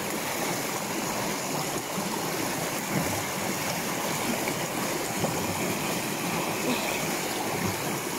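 Shallow stream running fast over flat rocks: a steady rush and babble of water.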